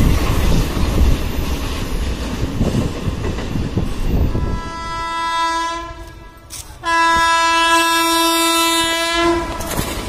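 Train rumbling and wheels clattering as a freight train passes, then an Indian Railways locomotive horn blowing a single steady note twice: a shorter blast about five seconds in and a longer one of about two and a half seconds that stops near the end.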